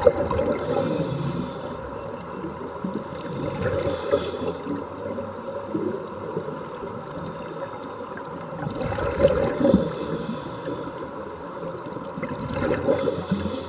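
Underwater sound of scuba divers breathing through regulators: a constant low rush with bubbling surges of exhaled air about every four seconds.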